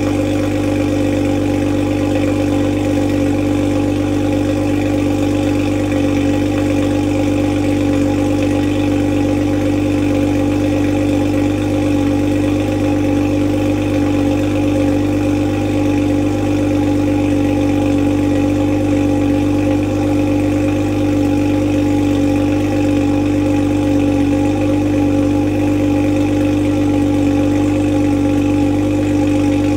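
2020 Toyota Supra's turbocharged 3.0-litre inline-six idling steadily through a catless AMS downpipe and the stock exhaust, still warming up after a cold start; the catless downpipe gives it a deeper note.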